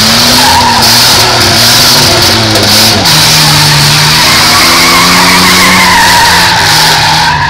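Several demolition derby cars' engines revving up and down under load, with tyres spinning and squealing on the track. Loud and steady throughout.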